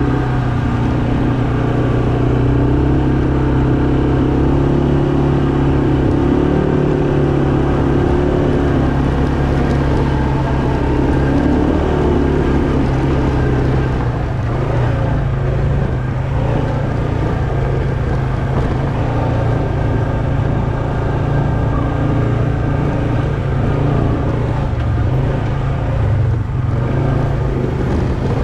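Arctic Cat ATV engine running at a steady pace as the quad is ridden along, a constant low engine note that holds without revving up or down.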